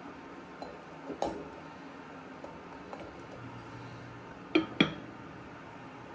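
Heavy earthenware pot knocking against a stainless wire rack on a portable gas stove as it is handled: one knock about a second in, then two sharp clacks close together about four and a half seconds in as it is set down upside down.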